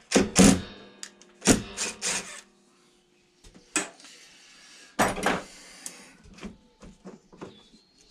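Metal hand tools clattering and clinking against a lawnmower's wheel and deck as a wheel nut is worked loose: several separate sharp clatters with a short metallic ring, the loudest in the first half-second.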